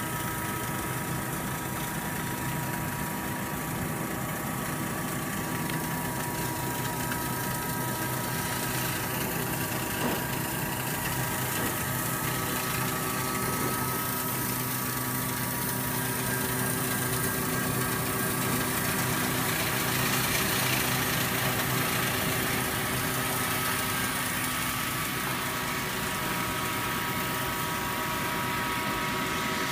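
1000 W fiber laser cutting machine running as it cuts 10 mm mild steel: a steady hiss with several steady humming tones, the level nearly even throughout.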